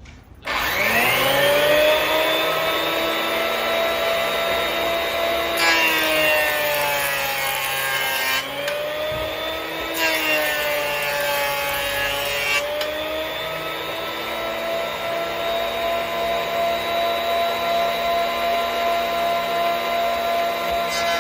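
Hitachi P50F thickness planer motor starting and spinning up to a steady high whine. Twice, for about three seconds each, the pitch sags under load and a rushing cutting noise joins it as boards are fed through the cutter head.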